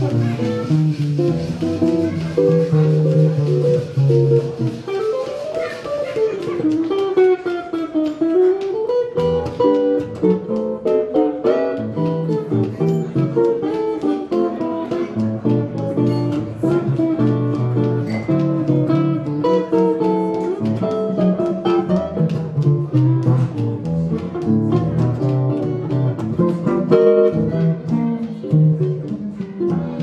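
Hollow-body archtop jazz guitar playing a solo chorus alone, with bass notes moving under the melody line.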